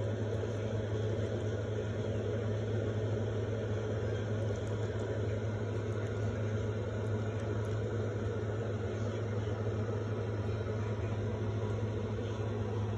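A steady low mechanical hum that runs on without a break.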